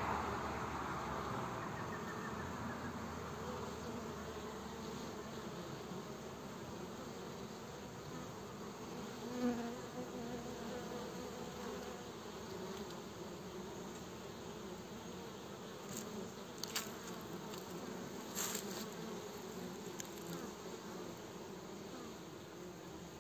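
Honeybees buzzing at a hive entrance: a steady hum of many bees coming and going, with one bee buzzing louder as it flies close past about nine seconds in, and a few faint clicks in the second half.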